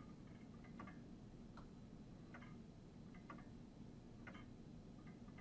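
Faint ticking of a clock, about one tick a second, over quiet room tone.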